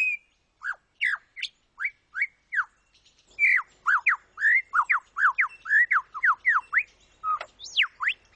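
Male superb lyrebird singing: a string of sharp, sweeping notes, a few spaced apart at first, then a fast run of rising and falling notes from about three seconds in, with two long falling notes near the end.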